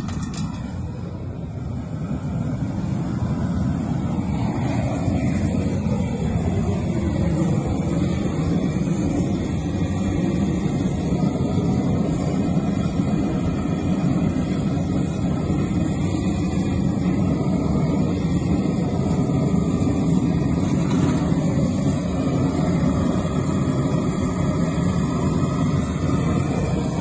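Propane torch, fed by a hose from a propane tank, burning with a steady, loud rushing noise.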